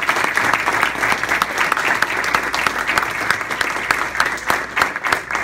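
Audience applauding: many people clapping together, dense and steady, beginning to thin out near the end.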